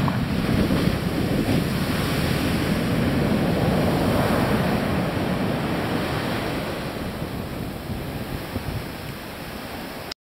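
Ocean surf: the foaming wash of breaking waves rushing up the beach, loudest a few seconds in and then slowly fading as it draws back.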